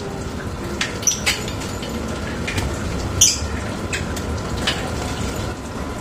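Lovebirds in a wire aviary giving a few short, high chirps, one about a second in and a sharper one about three seconds in, over a steady hiss.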